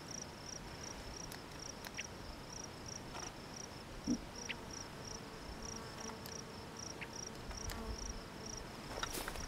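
An insect chirping in a steady, even rhythm, about three short high chirps a second, with a few faint clicks.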